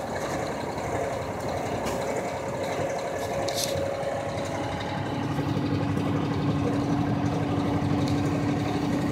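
A vehicle's engine running, heard from inside the cab while driving along a flooded street, under a steady hiss of tyres on water and rain. A low steady hum comes in about halfway through.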